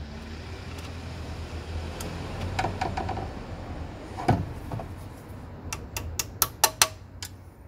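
Metal clinking as a double-row timing chain and its connecting link are handled, then a quick run of about eight light metallic hammer taps with a short ring, about five a second, near the end as the chain's link pin is tapped in. A low steady hum runs underneath.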